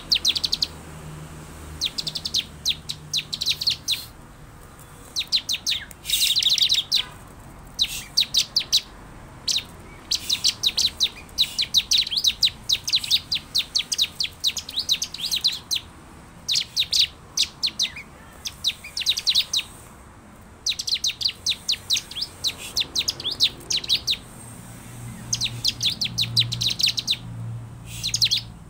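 Bar-winged prinia (ciblek) singing: rapid trains of sharp, high chirps, each burst lasting one to two seconds, repeated over and over with short pauses between.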